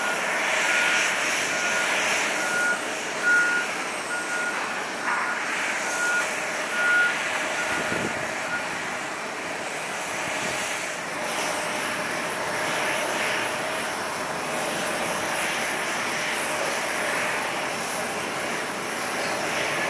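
Jet airliner engine noise carried across the airport as a steady rushing hum. A ground vehicle's single-pitch backup alarm beeps about once a second over it, then stops about eight seconds in.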